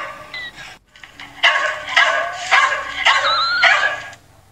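A dog giving a run of short yelps and whines, about one every half second, some sliding up in pitch.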